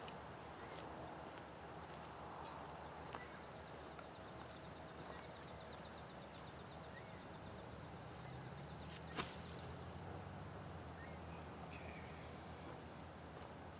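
Faint outdoor ambience: high, finely pulsed trills from small creatures recur every few seconds over a low steady hum. A single sharp knock comes about nine seconds in.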